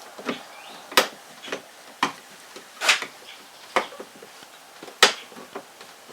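Irregular sharp clicks and knocks of the replacement door handle's bottom nut and parts being worked into place inside a pickup's door panel, with about five louder clacks.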